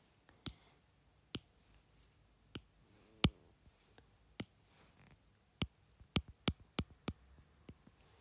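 Stylus tip tapping and clicking against a tablet's glass screen while writing: scattered sharp single taps, with a quick run of them a little past the middle.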